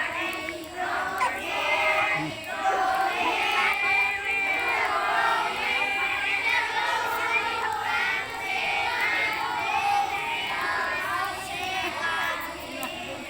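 A crowd of children's voices shouting and singing together, many high voices overlapping at once.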